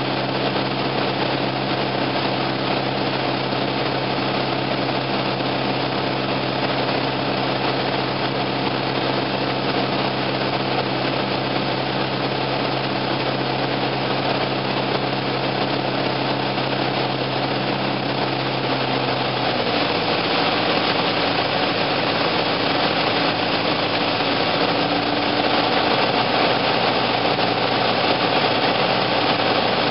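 Piper Cherokee's four-cylinder engine and propeller droning steadily, heard inside the cabin in flight. About two-thirds of the way through, the steady tone breaks up and the sound turns rougher and slightly louder.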